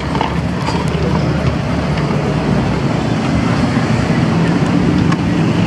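Steady road traffic noise with a vehicle engine running close by, getting a little louder toward the end. A few faint clicks sound over it.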